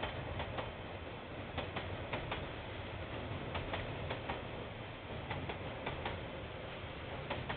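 A train's wheels clicking over a rail joint in quick pairs, roughly once a second, over a steady low rumble, as the cars roll past. The sound is dull, as heard through a security camera's microphone.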